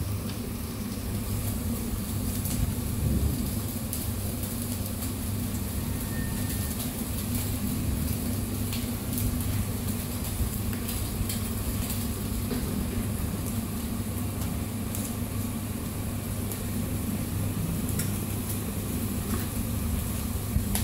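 Chicken döner sizzling on a vertical rotisserie grill over a steady low machine hum, with a few light clicks and scrapes as a long döner knife shaves the meat.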